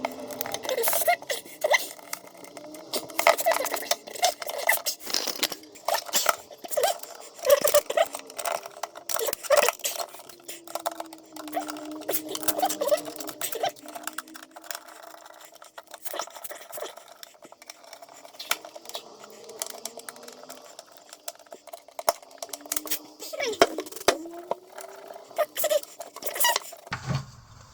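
Screwdriver tightening the screws of a wall socket with USB ports: scattered metallic clicks, taps and scrapes of the tool on screws and the socket plate.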